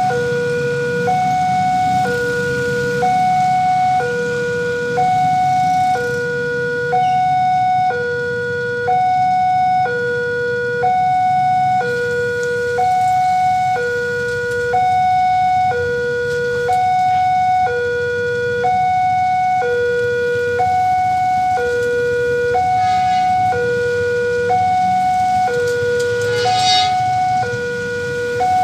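Railway level-crossing warning alarm sounding: an electronic two-tone signal alternating a lower and a higher note, each held about a second, warning that a train is coming while the barriers are down. A low rumble of waiting traffic lies underneath, and a brief high-pitched sound cuts in about two seconds before the end.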